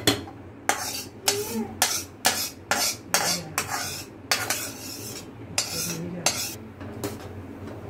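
Steel ladle scraping and knocking roasted semolina out of a steel kadhai into a pot of milk: quick, sharp metal-on-metal strokes, about two to three a second, thinning out in the second half.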